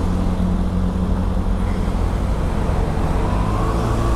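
Kawasaki Ninja ZX-6R's inline-four engine running at low, steady revs as the motorcycle rolls slowly in traffic, heard through a helmet microphone.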